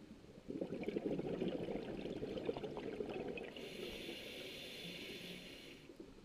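Scuba diver breathing through a regulator: exhaled air bubbles out noisily for about three seconds, then a steady hiss as the next breath is drawn.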